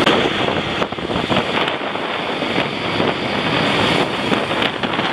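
Steady wind rush on the microphone mixed with a moped engine running, heard from a moving moped.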